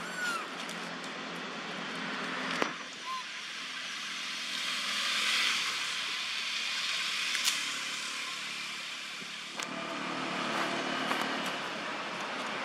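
Steady outdoor hiss that swells and fades in the middle, with a couple of short high squeaks from long-tailed macaques, one near the start and one about three seconds in, and a few faint clicks.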